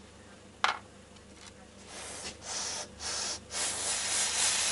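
A hot soldering iron tip sizzling in a tin of rosin flux, in four hissing spurts over the last few seconds, the longest near the end. A single sharp click about half a second in.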